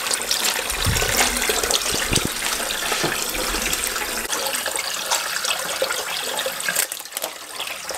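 Kitchen tap running into a plastic tub of water in a stainless steel sink, splashing as a hand swirls a thawed tilapia in it to rinse it. A couple of dull bumps come about one and two seconds in.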